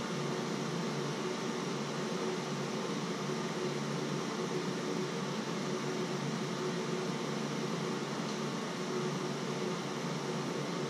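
Steady mechanical hum and hiss, like a running fan, with a faint constant tone and no change or break.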